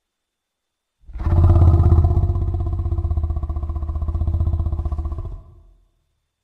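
Minotaur monster sound effect: a low, rapidly pulsing growl held for about five seconds, starting about a second in and fading out near the end.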